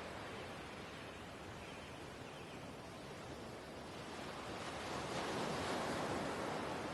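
Ocean waves washing in: a steady rush of surf that swells louder about two-thirds of the way through as a wave comes in.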